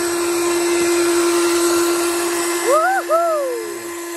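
Shimano electric fishing reel's motor whining steadily as it works the line. About three seconds in, a short two-part call rises and falls in pitch over it.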